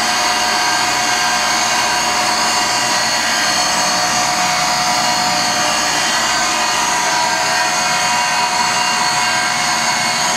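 Kombi Schliff D175 tool and cutter grinder running with its two diamond grinding wheels spinning freely, a steady motor whine made of many even tones.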